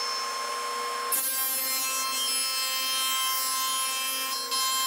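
Table saw running with a steady whine; about a second in the blade starts cutting a groove into a melamine panel fed along the fence, and the cutting noise carries on to the end.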